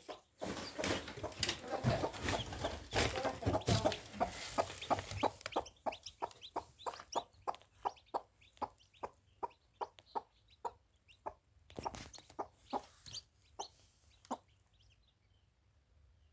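Chickens clucking. The first few seconds are a dense, noisy jumble of sound, then a steady run of short clucks about two a second that thins out and fades near the end.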